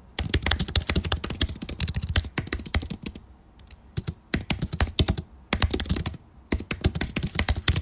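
Typing on a computer keyboard: quick runs of key clicks, with short pauses a little past three seconds in and again around six seconds.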